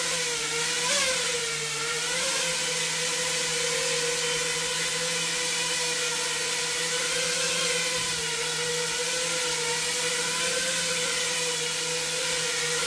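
FPV quadcopter's four brushless motors and three-blade propellers whining steadily in a low hover. The pitch dips and rises slightly a few times in the first couple of seconds as the quad corrects its position, then holds even.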